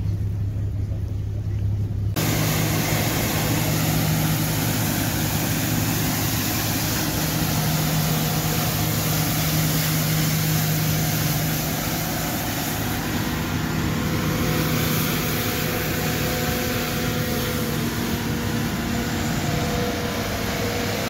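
A motor engine running steadily with a low hum over a dense rushing noise; the sound changes abruptly about two seconds in.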